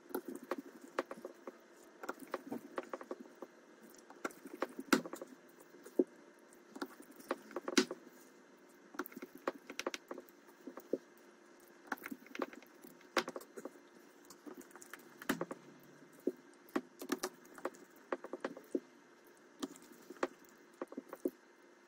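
Scattered small clicks and taps of a screwdriver and tiny crosshead screws being handled and driven back into a Samsung Galaxy A32 phone's frame, coming irregularly, sometimes several in quick succession.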